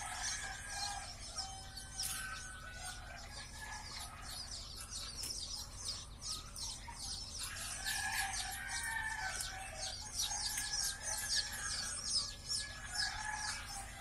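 A crowd of newly hatched chicks peeping nonstop: many short, high, falling cheeps overlapping all through.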